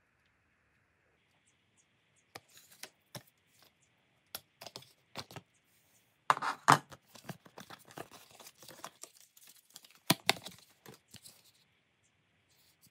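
Hatchet packaging and its hard plastic blade sheath being handled and pulled apart by hand: scattered rustles, tearing sounds and sharp plastic clicks starting about two seconds in. The loudest clicks come about six and a half seconds in and again about ten seconds in.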